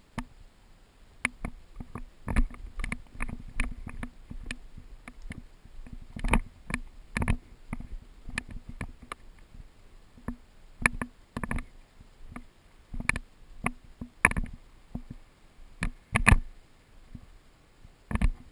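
An irregular series of sharp clicks and knocks, about one or two a second, some in quick pairs, with the loudest ones about six, thirteen, fourteen and sixteen seconds in.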